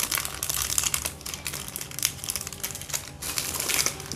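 Clear plastic jewellery packets crinkling and rustling as they are handled, in quick irregular crackles.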